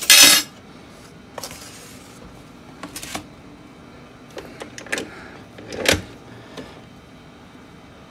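Handling of a KICHOT tilt-head stand mixer after whipping cream: a short loud rush at the very start, then scattered clicks and small knocks, with a firmer knock about six seconds in as the mixer head is unlocked and raised off the whisk.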